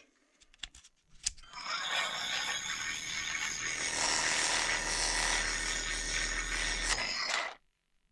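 Parkside 12-volt cordless jigsaw switched on with a click about a second in, then running steadily for about six seconds before it stops.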